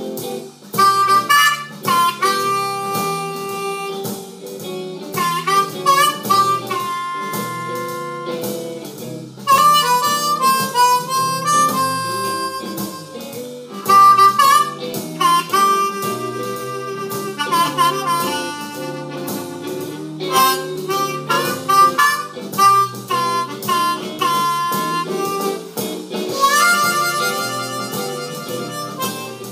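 Seydel 1847 Noble diatonic harmonica played solo with cupped hands: blues-scale phrases of held notes and quick runs, with bent notes that dip in pitch and come back up.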